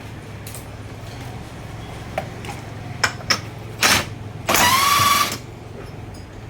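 Pinion flange nut on a truck differential being run on with a power tool, most likely an impact wrench: a short burst, then a longer burst of just under a second whose pitch rises slightly. A few metal clicks and clinks come before the bursts, over a steady low hum.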